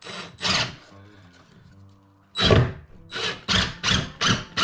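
Hammer blows on a wooden floorboard, driving in a fixing: two knocks at the start, then after a pause a steady run of blows, about two or three a second. Background music plays under them.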